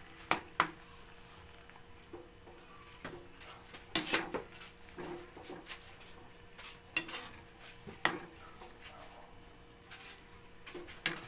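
A metal ladle stirring a soupy broth in a metal wok, scraping and clinking against the pan. There are sharp knocks now and then, the loudest about four and eight seconds in.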